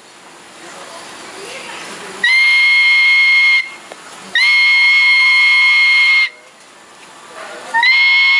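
Three long, steady whistle-like tones at one fixed pitch, each starting and stopping abruptly and held for one to two seconds, with the last still sounding at the end.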